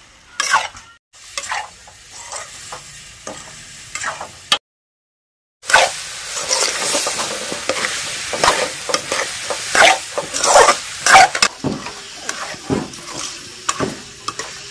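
Pumpkin pieces frying in a steel kadai, with a steel spatula scraping and clinking against the pan as they are stirred. The opening seconds hold only scattered clinks; after a brief gap about four and a half seconds in, loud sizzling starts and runs under the stirring.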